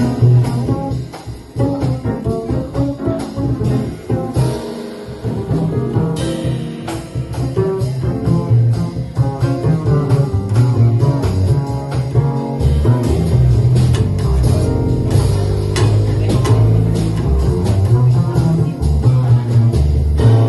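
Live jazz instrumental passage of piano and plucked double bass, with the bass notes growing more prominent and continuous in the second half.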